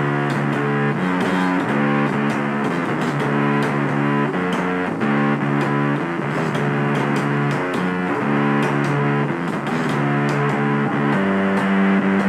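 Rock music: a distorted electric guitar plays a riff of changing notes over bass, with steady drum hits.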